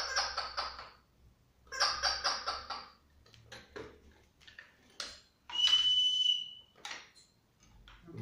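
A toy noisemaker sounded in two rapidly pulsing bursts of about a second each, then a toy whistle blown once on a steady high note for under a second, with light knocks of toys being handled in between. These are test sounds played to a child to check his hearing through a newly switched-on cochlear implant.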